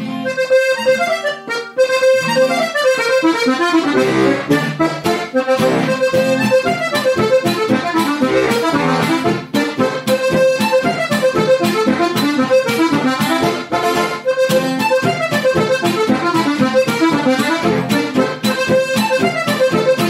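Lanzinger Steirische harmonika (diatonic button accordion) in C-F-B♭ tuning played solo: a folk tune with melody over a steady bass-and-chord beat. It opens with a few lighter notes and goes into full play about two seconds in.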